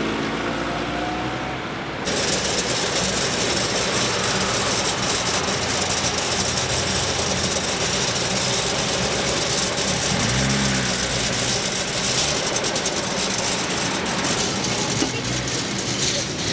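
Street ambience of steady road-traffic noise, a dense hiss that sets in abruptly about two seconds in, with a short pitched sound around ten seconds in.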